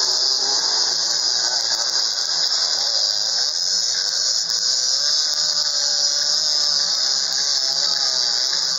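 A pack of dirt bike engines revving hard together as the bikes launch off the start, many wavering engine notes rising and falling over one another. A loud, steady, high-pitched hiss sits over them throughout.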